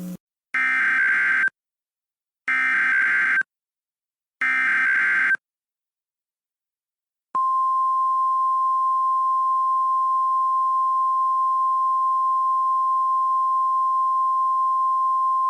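Emergency Alert System tones opening a new tornado warning. Three bursts of SAME digital header data, each about a second long and about two seconds apart, come first. After a short pause the single steady NOAA Weather Radio attention tone starts about seven seconds in and holds.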